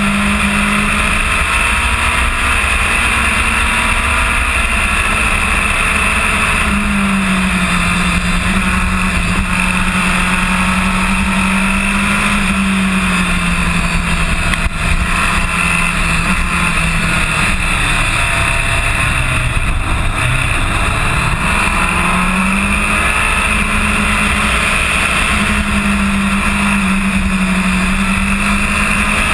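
Kawasaki ZX-10R's inline-four engine running at track speed, its pitch rising and falling with the throttle, under heavy wind rush on the fairing-mounted mic.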